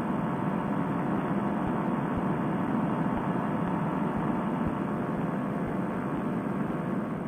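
Fresh Breeze Monster paramotor's two-stroke engine and propeller running steadily in cruise flight, a constant drone.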